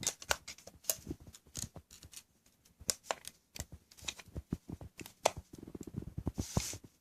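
Irregular clicks and taps of a plastic power supply adapter and its cable connector being handled, with a short patch of rapid rattling near the end.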